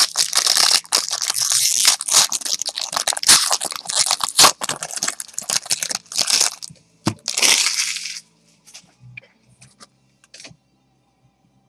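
Wrapper of a basketball trading-card pack crinkling and tearing as the pack is opened, a dense crackle for about eight seconds that then gives way to a few soft handling clicks.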